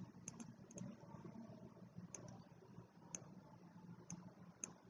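Faint, scattered computer mouse clicks, a handful of sharp, irregular ones, over near-silent room tone.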